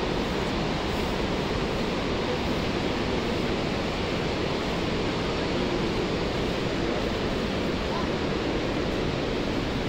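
A steady rushing noise that holds evenly from deep to high pitches without any change.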